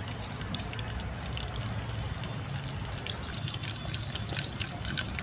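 Battered chicken pieces sizzling and crackling in hot mustard oil in an iron kadhai, with scattered small pops. About three seconds in a bird starts calling in a fast run of short, falling chirps.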